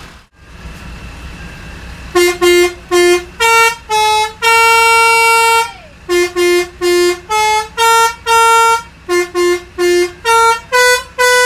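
A bus's Basuri "telolet pianika" multi-tone horn playing a melody: about twenty short and long pitched horn notes begin about two seconds in. A low engine idle runs underneath.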